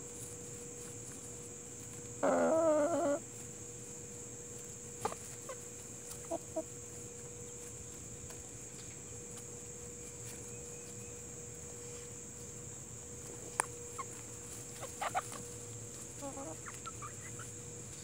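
Foraging Barred Plymouth Rock and Hamburg hens: one loud, wavering call about two seconds in that lasts about a second, then a few short, soft clucks and clicks scattered through the rest.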